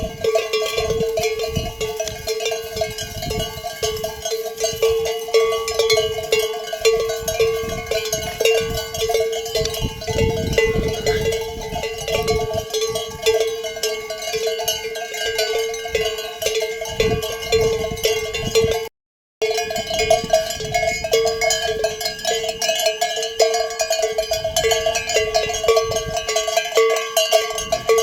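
Sheep bells clanking continuously as the flock moves, a deep bell ringing over and over several times a second among others. The sound drops out for a moment about nineteen seconds in.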